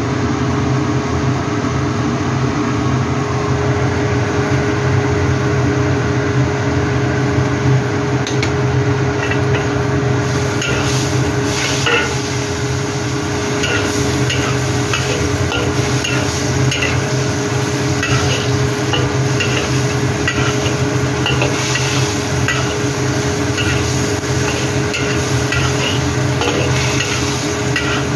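Chayote, tempeh and shrimp stir-frying in a wok: oil sizzling and a spatula scraping and tapping against the wok over and over, with a steady mechanical hum underneath. The sizzle and the spatula strokes pick up from about ten seconds in.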